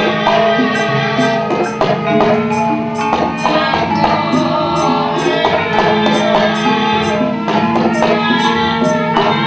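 Javanese gamelan ensemble playing, metallophones struck with mallets sounding layered, sustained ringing notes, over a regular beat of short sharp strikes.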